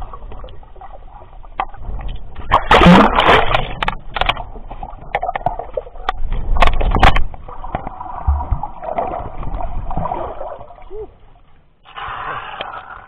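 Sea water splashing and sloshing around a camera held at and just under the surface by a snorkeler, with crackling clicks and two louder splashes about three and seven seconds in, and a shorter one near the end.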